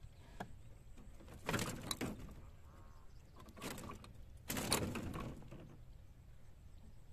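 Wire-mesh cage fish trap rattling and scraping in three short bursts as fish are taken out of it by hand; the loudest comes about four and a half seconds in.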